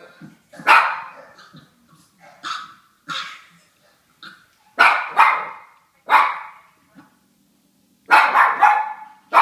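A dog barking over and over: single barks and quick pairs spaced a second or two apart, then a fast run of several barks near the end.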